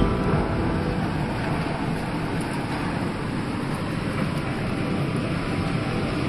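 Storm wind and heavy rain: a steady rushing noise.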